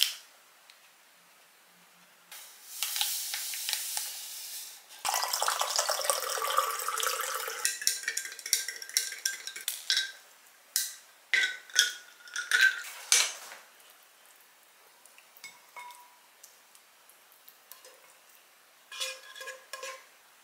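Peach iced tea made in a glass: powder from stick sachets poured in with a hiss, then water poured over it, then a spoon stirring and clinking against the glass for several seconds. A few short clinks near the end.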